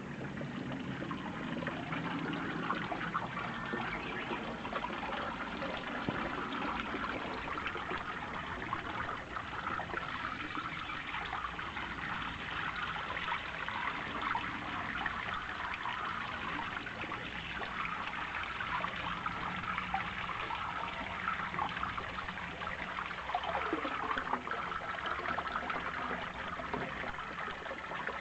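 Spring water running in a steady trickle and splashing.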